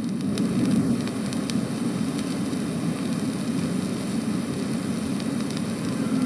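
Surface noise of an old recording: a steady low rushing hiss with a few faint clicks. Held music notes come back at the very end.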